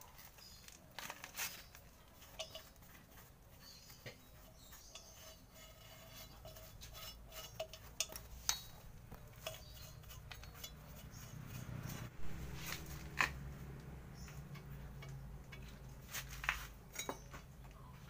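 Scattered metallic clinks and taps of a screwdriver working against a car's rear drum-brake backing plate and fittings during brake shoe fitting. A low steady hum comes in about two-thirds of the way through.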